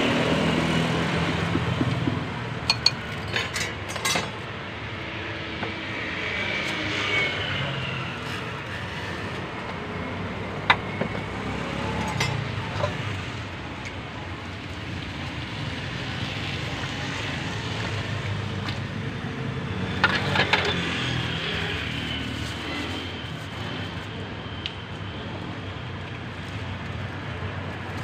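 Steady street traffic and background noise, with a few sharp clinks of a metal ladle against the aluminium soup pot.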